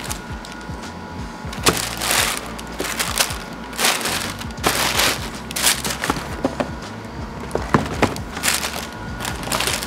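Tissue paper crinkling in repeated short bursts as shoes are unwrapped from a cardboard shoe box, with a few sharp knocks from the boxes being handled, over a steady low hum.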